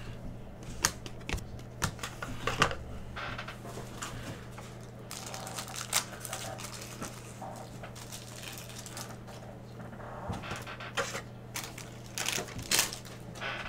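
Trading cards being handled: scattered light clicks and taps as the cards are flicked through and set down, over a steady low electrical hum.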